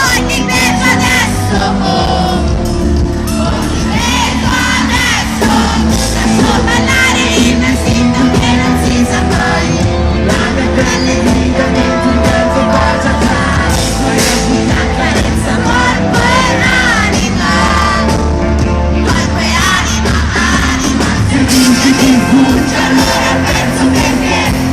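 Pop-rock band playing live in an arena, with a lead vocal over full band, and audience shouts mixed in.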